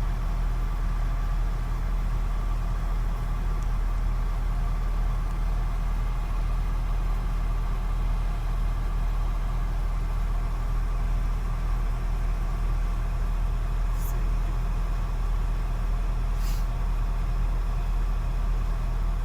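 Truck crane engine running steadily, a constant low drone. Two brief clicks come late on, about two and a half seconds apart.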